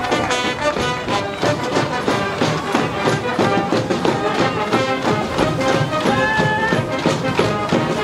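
School brass band playing a stadium cheering tune, trumpets, saxophones and trombones over a steady beat.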